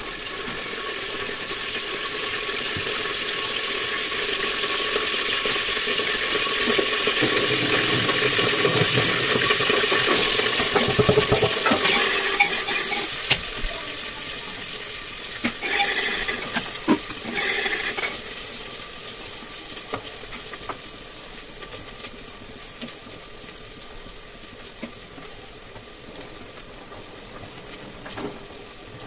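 Hissing from cookware on a kitchen stove that builds over the first ten seconds or so and then dies away. Metal pots and utensils clink a few times around the middle.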